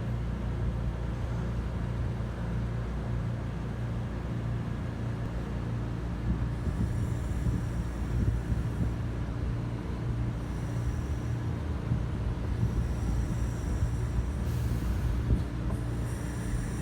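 BMW E53 X5 3.0i's inline-six engine idling steadily, with a faint high whistle that comes and goes several times: the sound of a vacuum leak.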